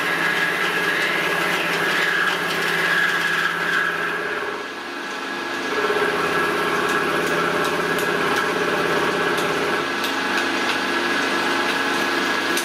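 Small milling machine running and cutting the side of a metal disc under flood coolant: a steady machining whine with several held tones. About halfway through it briefly drops in level, then comes back at a changed pitch.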